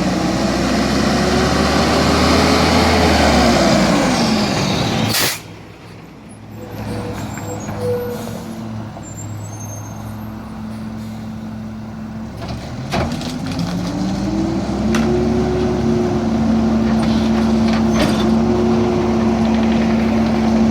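Diesel garbage truck engine revving up and falling back over the first four seconds, with a sharp hiss-click about five seconds in. Around thirteen seconds the engine speeds up again and holds steady at raised revs, as when a refuse truck's engine is sped up to drive the compactor hydraulics.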